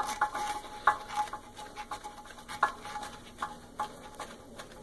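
A 1/2-inch nut driver tightening the nuts onto a toilet's closet bolts, making irregular light metal clicks and scrapes as the nuts are turned down against the caps' washers.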